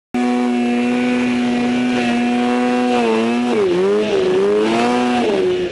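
Mountain snowmobile's two-stroke engine at high revs, starting abruptly and holding a steady pitch, then dipping and climbing back twice as the throttle eases and reopens.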